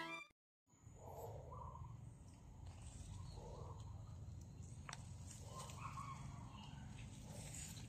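Faint outdoor sound: a steady low wind rumble on the microphone, with soft scattered rustles and a click as someone moves through weeds and grass.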